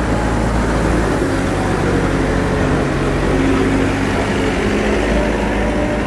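Diesel engine of a Hidromek 102 S backhoe loader running close by, a steady low rumble with its pitch shifting a little as the engine speed varies.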